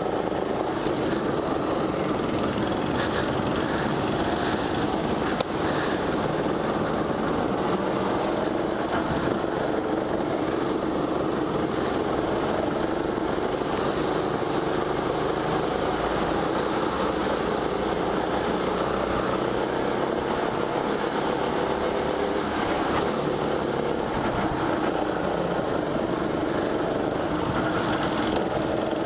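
Rental go-kart engine running steadily under the driver, heard from on board the kart, its pitch wavering a little as the throttle changes through the corners, over a steady rush of noise.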